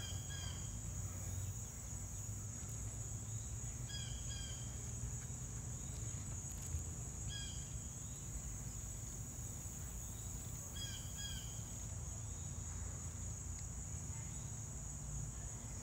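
Insects giving a steady high-pitched drone, with a short call of a few clipped notes repeating about every three and a half seconds, over a low rumble.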